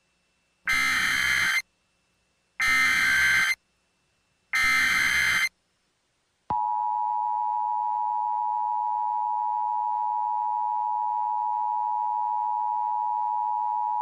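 Emergency Alert System tones. Three one-second bursts of SAME digital header data come about a second apart. Then, about a second after the last burst, the steady two-tone EAS attention signal (853 and 960 Hz) starts and holds.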